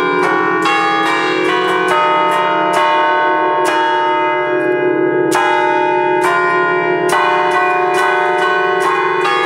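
Five bronze church bells, a peal in slightly flat D-flat cast by Fratelli Ottolina in 1932, played from a baton keyboard. Their clappers strike in a quick melodic sequence, about two to three strokes a second, over a continuous wash of overlapping ringing.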